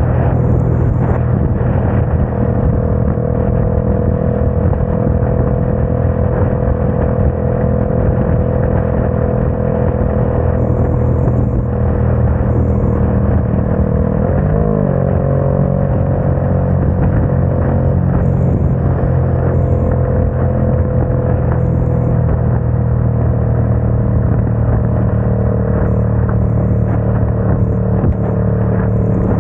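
Motorcycle engine running steadily in fifth gear at highway speed, its pitch sinking slowly as the bike slows from about 60 to 47 mph, under heavy wind and wet-road noise.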